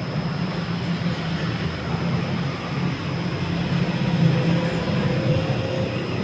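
Carpet spinner running: its electric motor and spinning drum make a steady mechanical rumble and hiss, with a faint tone that drifts slightly in pitch in the second half.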